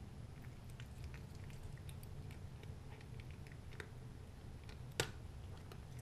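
Cat crunching dry kibble from a bowl: a scatter of small crunches and clicks, with one sharper click about five seconds in, over a steady low hum.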